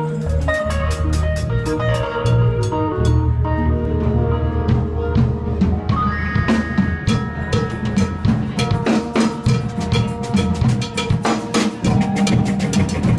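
Live band playing an instrumental groove: a drum kit keeps a busy beat of snare and bass drum hits over a steady bass line and sustained chords. The drumming grows denser in the second half.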